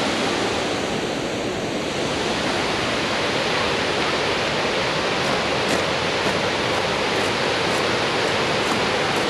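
Water pouring over a concrete dam spillway into the river below: a steady rushing noise.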